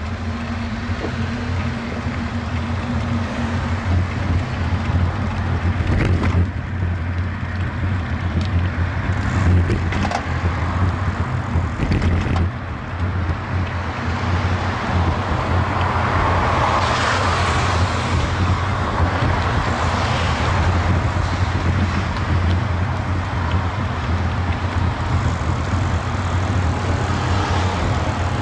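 Street noise recorded by a bicycle-mounted action camera while riding: a steady low rumble of wind and road on the microphone, with traffic noise that swells about halfway through. A few sharp knocks come in the first half.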